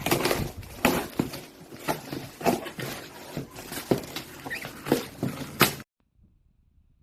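Irregular rustling with sharp clicks and knocks, like things being handled, stopping abruptly near the end to near silence.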